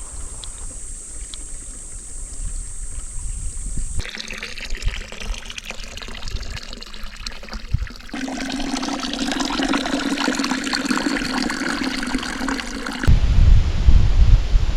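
Several short outdoor takes cut together, mostly water running and trickling. About two seconds before the end, a sudden, much louder low rumble cuts in.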